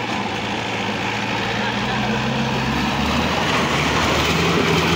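Small open off-road jeep's engine running under load as it drives through a shallow river and up the bank, its wheels churning and splashing water. The engine note changes about three seconds in, and the sound grows louder throughout.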